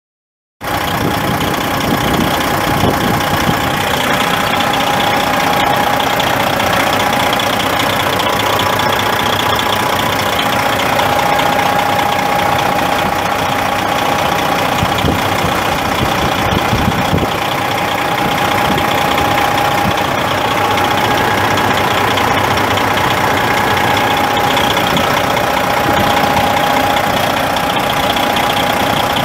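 Detroit Diesel Series 60 12.7-litre inline-six turbo diesel of a 1993 Freightliner FLD semi truck idling steadily, cutting in suddenly about half a second in, with a thin steady whine over the engine.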